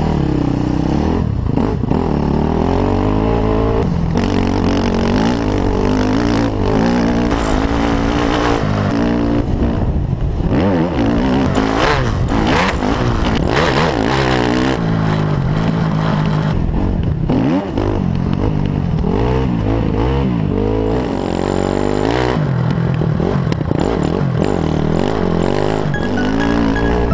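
Motocross dirt bike engine revving while riding a dirt track, its pitch rising and falling again and again as the throttle opens and closes, heard close up from on board the bike.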